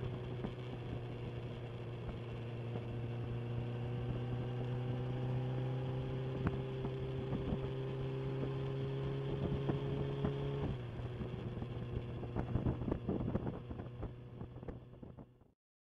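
Inline-four sports motorcycle engine running steadily, its pitch creeping slightly higher, then cut off abruptly about eleven seconds in. A scatter of irregular clicks and knocks follows.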